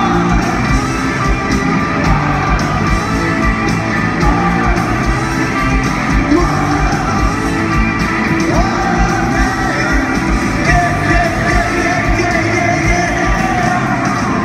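Rock band playing live in an arena: loud sung vocals over electric guitars, drums with a steady beat, and keyboards, heard from the crowd with the hall's echo.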